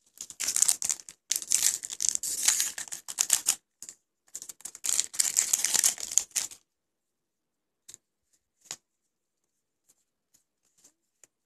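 Foil wrapper of a Magic: The Gathering booster pack being torn open and crinkled, a dense crackling rustle that stops about six and a half seconds in. A few faint clicks follow.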